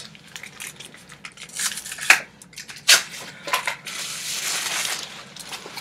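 Clear plastic wrapping crinkling and rustling as a lacrosse shaft is pulled out of it, with sharp crackles throughout and a longer rustle about four seconds in.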